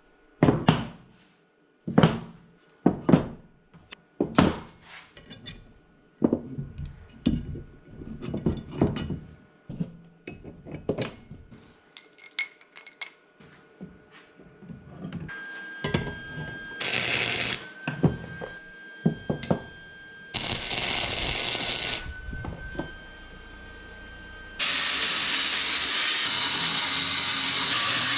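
Metal parts being handled, with repeated clanks and knocks. Then a power tool's motor whines steadily and cuts or grinds metal in three bursts, the last and longest near the end.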